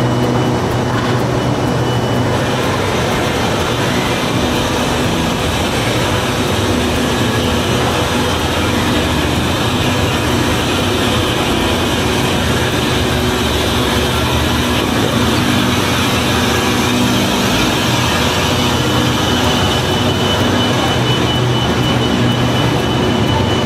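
Steady rumble of a diesel-hauled passenger train at a station platform as its coaches begin to roll away. A thin high whine sounds briefly at the start and again over the last few seconds.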